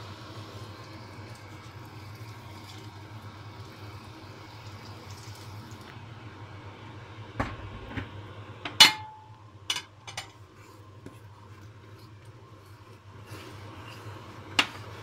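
Water pouring from a kettle into a stainless steel pot for about six seconds, followed by a metal ladle knocking against the pot several times. The loudest knock, about nine seconds in, rings briefly, and one more knock comes near the end.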